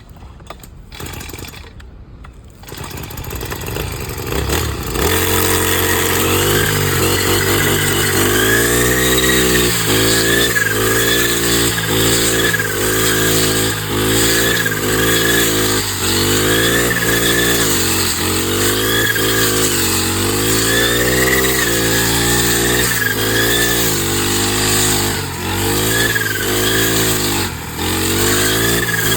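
Kamassu G435T four-stroke brush cutter engine running. After the first few seconds it is loud, its speed rising and falling over and over, about once every second or two, as the throttle is worked while cutting grass with the metal blade.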